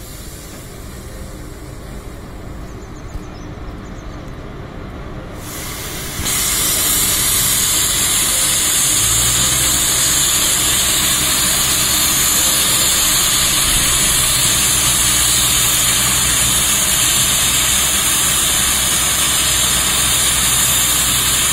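Twin WAG5 electric locomotives hauling a freight train past at low speed: a loud steady hiss from the locomotives' blowers, jumping sharply louder about six seconds in, with a low steady hum joining a few seconds later.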